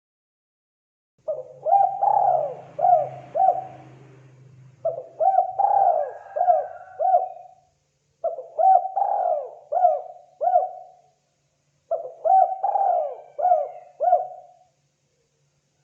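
Spotted dove (tekukur) calling: four cooing phrases, each a quick run of four or five coos, spaced about three and a half seconds apart.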